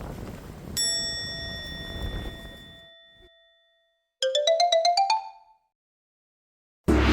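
Wind noise on the microphone dies away. A single bell-like chime rings out and fades over about three seconds, then a quick rising run of about a dozen bright plucked notes plays: chime and glissando sound effects. Background music with a steady bass starts near the end.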